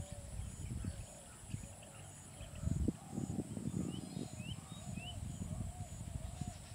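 Open-air ambience: low, irregular rumbling and thumps, loudest about three seconds in, with a few short rising bird chirps between four and five seconds and a short call repeating through the second half.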